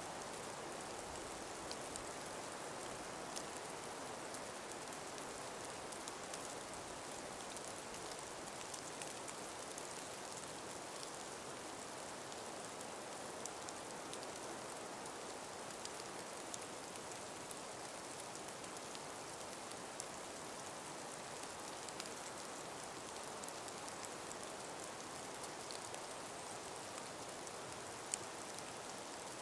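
Light breeze through ice- and snow-laden forest trees: a steady, faint hiss, with scattered small ticks and one sharper tick near the end.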